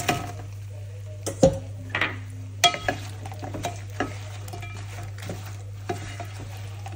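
Fried chicken pieces tipped from a metal bowl into a hot pan of sauce and stirred with a wooden spatula: a sizzle with clattering knocks and scrapes of bowl and spatula against the pan, loudest about one and a half and two and a half seconds in, over a low steady hum.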